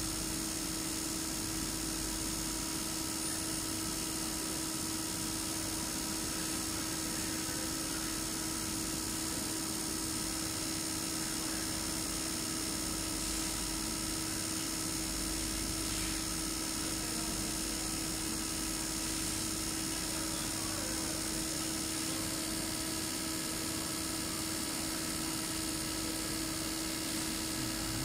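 EPS916 injector test bench running steadily, its motor-driven high-pressure pump turning at low speed and holding rail pressure, giving an even hum with a constant whine.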